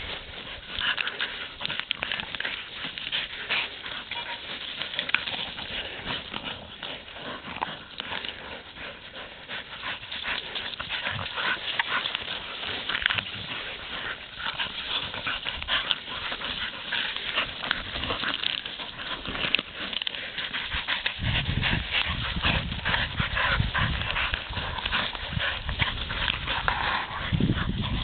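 Two dogs working an armadillo, making dense, short, sharp sounds. A low rumble joins in about three quarters of the way through.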